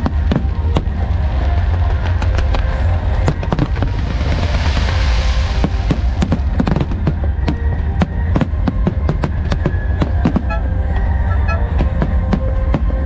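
Fireworks show: a rapid, uneven run of sharp firework bangs and crackles, with a hissing burst about four to six seconds in, over music playing throughout.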